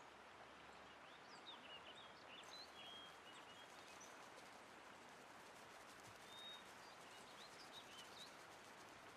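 Faint outdoor ambience, close to silence: a steady soft hiss with scattered short bird chirps.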